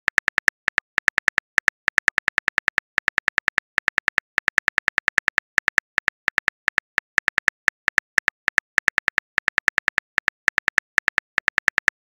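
Phone on-screen keyboard clicking as a message is typed, one short click per letter, about six a second with brief gaps between words.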